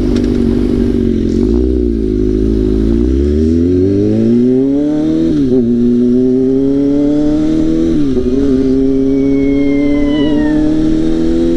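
Straight-piped 2005 Kawasaki ZX-6R inline-four engine under way, accelerating through the gears: the pitch rises steadily, drops sharply at each of two upshifts about five and a half and eight seconds in, then climbs again.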